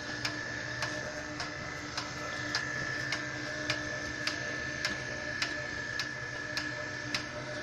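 Cobra sewer drain-cleaning machine running steadily, with a steady high whine and low hum and a regular click about every 0.6 s as it turns.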